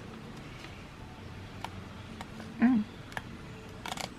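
A few light clicks and handling noises from the stapleless stapler and bond paper, with a small cluster of clicks near the end. A short vocal 'mm' comes about two and a half seconds in.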